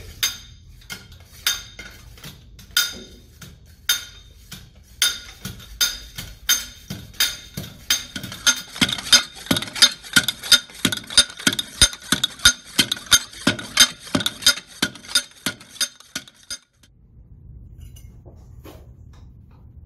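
A 5.5-pound manual soil-compaction rammer with a 12-inch drop striking soil in a steel Proctor mold, each blow a sharp metallic clank with a ringing of the steel. The blows come about a second apart at first, then about two a second, and stop suddenly a few seconds before the end: one lift of 25 blows in a moisture-density compaction test.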